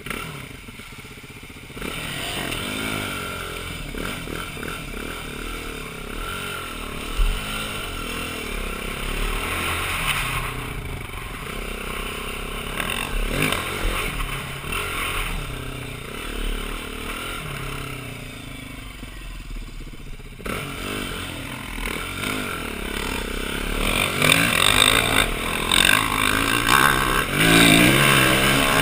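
Single-cylinder engine of a 2009 BMW G450X dirt bike being ridden, its revs rising and falling continually, with clattering from the bike over rough ground. The revs climb higher and louder near the end.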